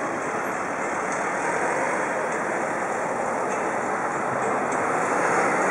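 Steady, even road traffic noise with no distinct events.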